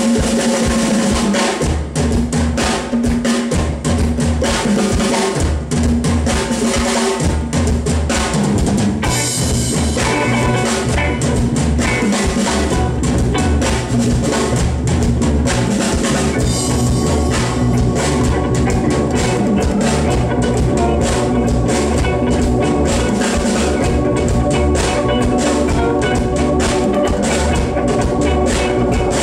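Loud music driven by a drum kit, kick and snare hitting steadily, over low held bass notes.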